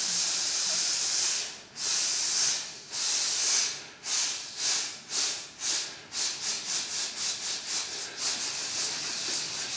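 A men's chorus hissing together on an unvoiced 's' in a breath-support warm-up. A long hiss is followed by two of about a second each, then short pulses that speed up to about four a second.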